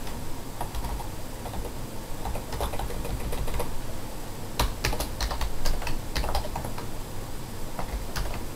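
Typing on a computer keyboard: irregular key clicks with short pauses, a few strikes louder than the rest around the middle.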